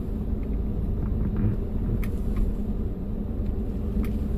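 A 2015 Ford F-150 pickup crawling slowly over a rutted dirt track, heard from inside the cab: a steady low engine and road rumble, with a few light knocks.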